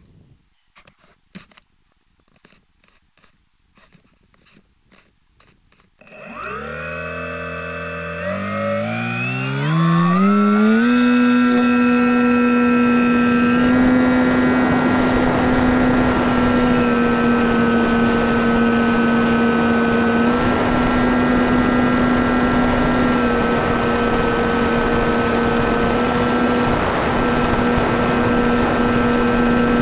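Skywalker FPV plane's electric motor and propeller, heard aboard: a few faint knocks. Then about six seconds in the motor spins up in steps to full throttle and settles into a steady high-pitched drone with air rushing past as the plane flies, its pitch dipping slightly now and then.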